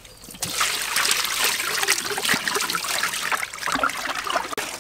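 Water poured from a plastic bowl over whole fish in a metal basin, splashing and trickling as hands rinse and rub the fish; it starts about half a second in.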